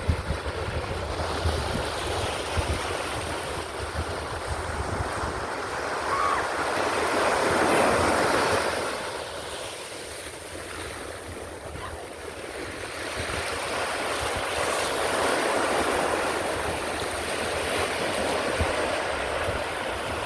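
Ocean surf: waves breaking and washing up the shore in long swells, loudest about eight seconds in and again toward the end. Wind buffets the microphone with a low rumble.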